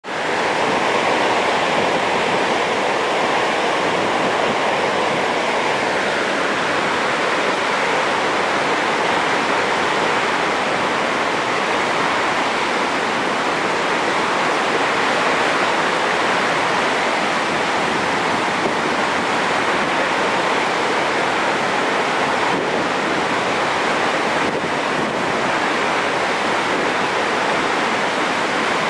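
Large river waterfall in heavy flow: a steady, unbroken rush of falling water.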